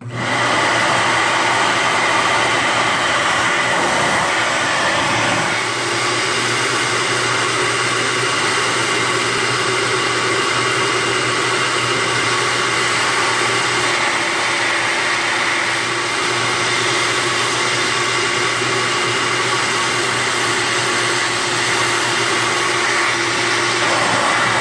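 Electric air blower switched on and running steadily, a loud rush of air over a motor hum, forcing cold air through the oil filler opening of a GY6 scooter engine to blow the last of the old oil out of the crankcase.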